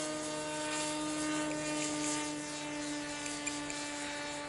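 Electric motor and pusher propeller of a Sky Hunter RC plane in flight, making a steady buzzing drone.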